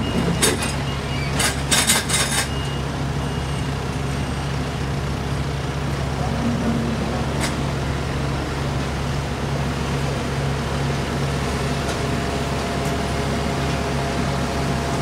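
Heavy diesel engines of a John Deere backhoe loader and a cold-milling machine running steadily. About two seconds in there is a short burst of metal clanking and scraping, and a few faint high reversing-alarm beeps sound in the first few seconds.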